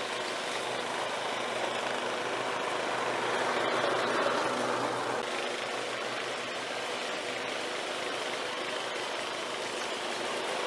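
Exmark walk-behind lawn mower engine running steadily while mowing grass. It grows a little louder about four seconds in, then settles.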